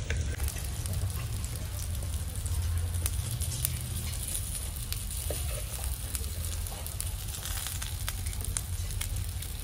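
Mutton chops sizzling in oil on a flat pan over a wood fire, a steady frying hiss, with light scrapes and clicks of a wooden spatula and a knife turning the meat.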